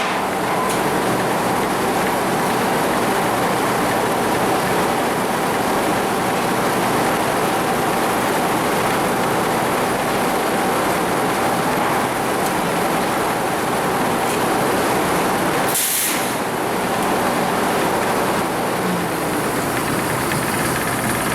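Old sawmill machinery running steadily, with a constant whine under a loud, even noise. A short hiss comes about sixteen seconds in.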